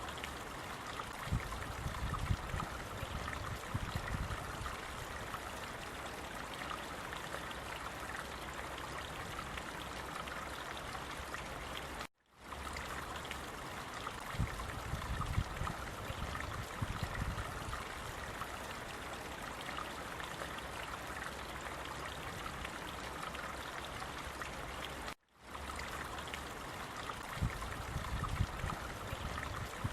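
Water flowing in a stream, a steady trickling rush with occasional low swells. The sound cuts out for a split second about 12 and 25 seconds in, where the same short recording starts over.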